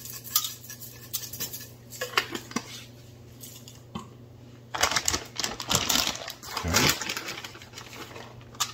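Metal utensil scraping and tapping as it spreads sauce on bread in a foil-lined pan, small scattered clicks. From about five seconds in, a plastic bag of shredded cheese crinkles and rustles, louder and more continuous.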